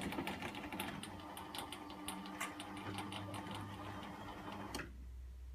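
MHouse GD0C garage door opener motor running as it raises a sectional door, a steady hum with a stream of clicks. It cuts off suddenly about five seconds in as the door stops at its programmed one-metre partial opening.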